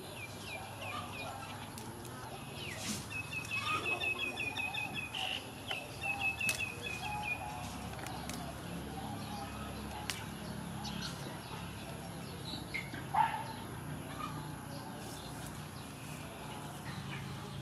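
Yard birds calling: a quick run of short high chirps for a few seconds, with chickens clucking, over a low steady hum.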